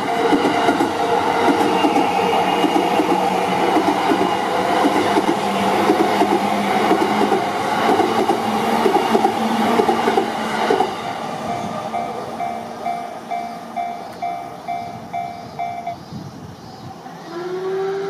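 JR East E235 series electric commuter train passing over a level crossing: a loud, steady run of wheel noise with a regular beat for about the first eleven seconds. As the train clears, the crossing's warning bell rings on alone about twice a second, then stops about two seconds before the end. A short rising hum follows near the end.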